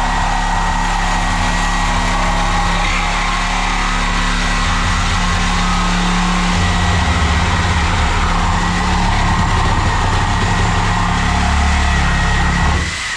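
Power saw with a cutting blade running steadily and cutting through, until the trigger is released near the end and the motor winds down.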